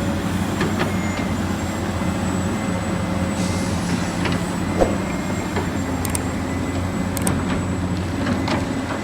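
Heavy vehicle engine running steadily: a low drone with a faint high steady whine and a few scattered clicks. It cuts in and out abruptly.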